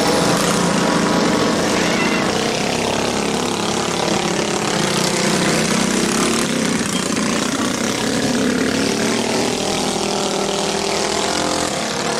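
Several minibike engines running hard at once in a dirt-track race, their overlapping pitches rising and falling as the bikes pass.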